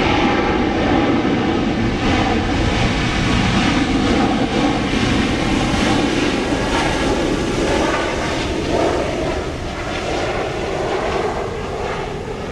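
Airliner engines running loud as the plane passes, a steady, dense engine noise that eases off somewhat near the end.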